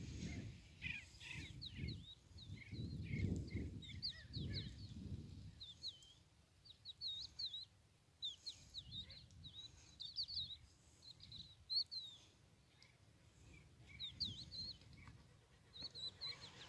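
Sandgrouse calling in flight: many short, quick chirps overlapping throughout. Wind rumbles on the microphone at times, most in the first five seconds.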